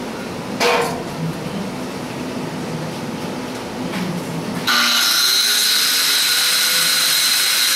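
Corded angle grinder switched on about two-thirds in, running with a loud, steady high whine. Before it, a steady low hum and a single knock about a second in.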